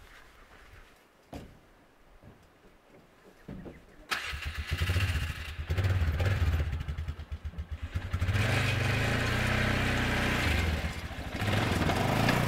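Small ATV engine starting about four seconds in, then running and revving up and down as the quad is ridden down loading ramps off a pickup bed.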